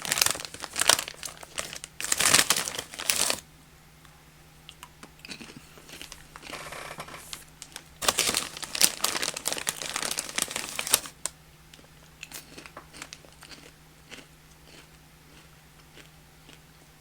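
A crinkly snack bag rustling as popcorn is taken out, in two loud spells, at the start and again about eight seconds in, with quieter crunching and chewing of the cinnamon-coated popcorn between and after.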